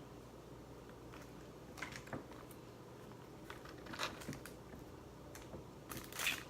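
Close-up eating sounds: a few soft crunches and clicks of someone chewing and working at seafood such as crab legs, with a longer, louder crunch near the end.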